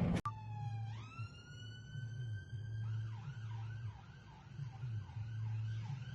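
An emergency vehicle siren, faint and away from the microphone: it winds up in pitch and holds a steady wail, then switches about three seconds in to a fast repeating yelp, about two swoops a second. A steady low hum runs underneath, and a sharp click comes right at the start.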